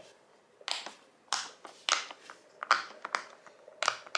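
Silicone bubbles of a small ghost-shaped pop-it fidget toy being pressed through one after another, a string of quick, sharp pops at a few per second in an uneven rhythm.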